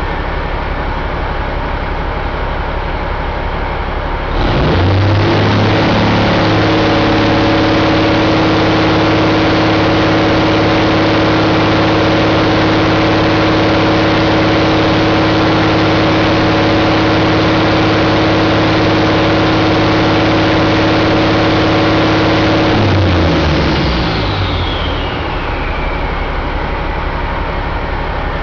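Caterpillar C15 turbocharged inline-six diesel engine running on a test stand. It is idling, then revved sharply up about four seconds in and held at a steady high speed for most of the time. Near the end it drops back to idle, with a high whine falling away as the revs come down.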